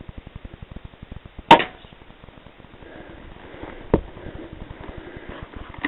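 A single shot from a scoped vermin rifle fired at a rat, a sharp crack with a short ring about one and a half seconds in. A fainter knock follows about two and a half seconds later.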